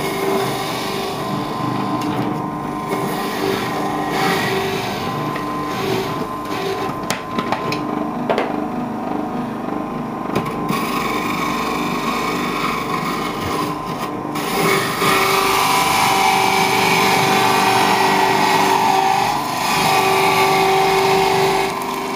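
Electric juicer's motor running with a steady whine while celery is fed down the chute and ground, a few knocks about a third of the way in. The sound grows louder from about two-thirds in, dipping briefly near the end.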